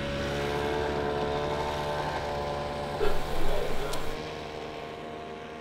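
A vehicle engine running with a steady hum, fading out near the end. A short voice is heard about three seconds in.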